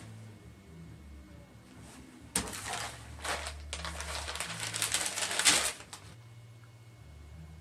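Newspaper rustling as it is picked up and opened, a run of crackly rustles lasting about three seconds that starts a couple of seconds in.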